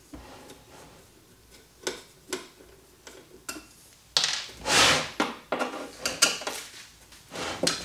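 Hands working on the screwed-down, powder-coated steel lid of a 12 V LiFePO4 battery case to take it off. There are scattered light clicks and taps, then from about four seconds in a louder rasping noise lasting about a second, followed by several sharp metal knocks and clanks.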